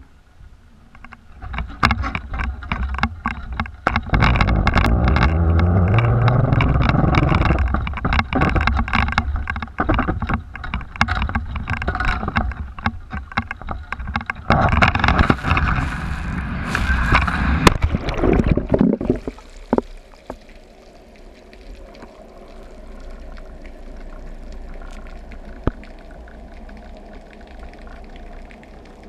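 Camera on a basket-float fishing rig: rushing wind and rough handling noise with sharp knocks as it is swung and cast, cutting off abruptly about two-thirds of the way through as it plunges into the sea, then a quiet, muffled steady hiss underwater.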